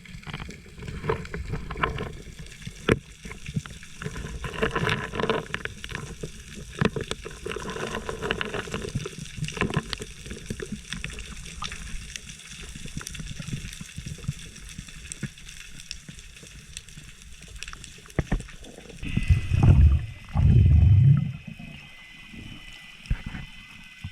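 Water sloshing and gurgling around a spearfisher's camera, with many scattered clicks. Two loud, low, muffled bursts come near the end.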